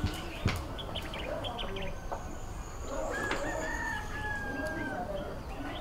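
A rooster crowing once in a long call of about two seconds past the middle, with small birds chirping briefly before it. A single sharp tap sounds about half a second in.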